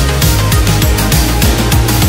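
Loud electronic dance music with a fast, steady beat and deep bass.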